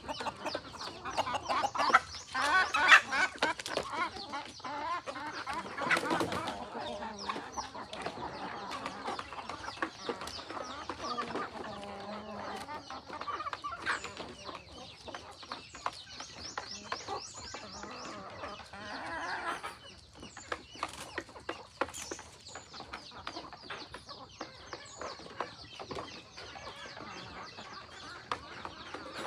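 A flock of chickens clucking, with louder calls about two to three seconds in and again around six seconds, over many short ticks.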